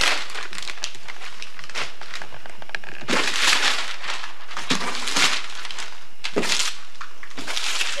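Newspaper gift wrapping being torn and crumpled off a large cardboard box, in about six separate rustling bursts, the longest about three seconds in.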